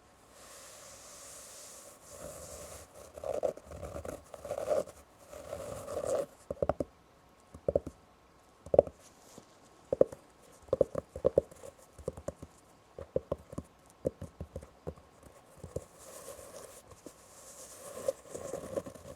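Fingernails scratching and tapping on fabric or canvas. Rubbing strokes come first, then a long run of quick, irregular taps, then rubbing again near the end.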